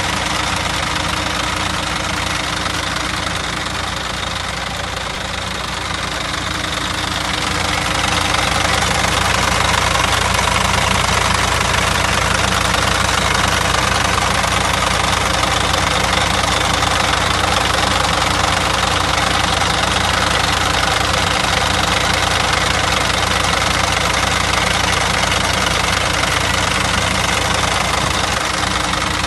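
Rear-mounted diesel engine of a 2006 Euro 4 VDL Lexio bus idling steadily, heard close up at the open engine bay, a little louder from about eight seconds in.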